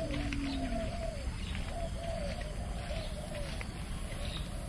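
Victoria crowned pigeons calling: a low humming coo that sinks away within the first second, then a run of short repeated calls.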